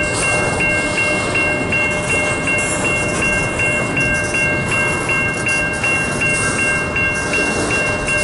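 Railroad crossing bell ringing in steady pulses, about three a second, over the continuous rumble and wheel noise of a freight train's cars rolling slowly past.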